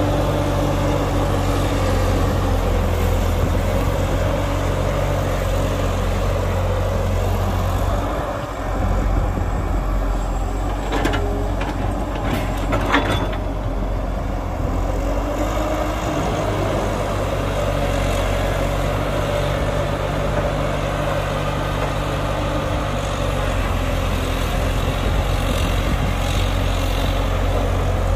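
Heavy diesel engines of an excavator and dump truck running steadily, the engine note shifting about eight seconds in, with a few sharp metallic clanks around the middle.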